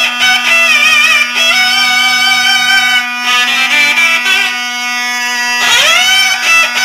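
Instrumental Turkish song: a melody instrument playing a wavering, sliding line over a steady drone, with a rising pitch swoop near the end.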